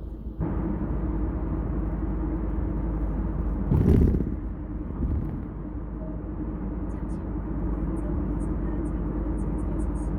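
Kia K5 driving at highway speed: steady road and engine rumble that grows louder about half a second in. About four seconds in there is a brief loud whoosh, with faint light ticks near the end.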